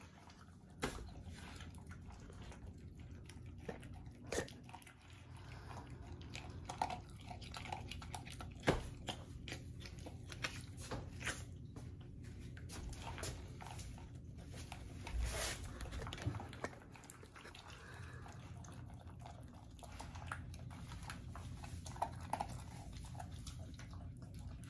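An English bull terrier eating dry kibble from a stainless steel bowl: irregular crunches and chewing, with scattered sharp clicks.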